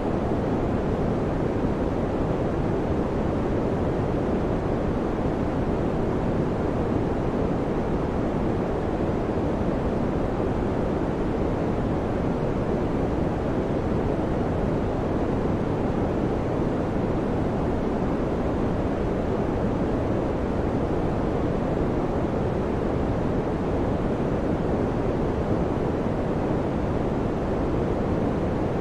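Electric fan running steadily: an even rush of moving air, deepest and strongest in the low and middle range, with no clicks, hum lines or changes in level.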